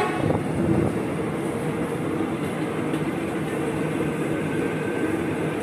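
Soekarno-Hatta Airport Railink electric train running straight through the station at speed, passing close by: a steady rush of wheels on rails with a low hum.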